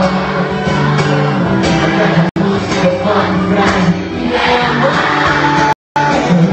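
Live concert music from a band with singers on vocals, heard through a phone livestream with nothing in the highest frequencies. The audio cuts out very briefly about two seconds in, and again for a split second near the end.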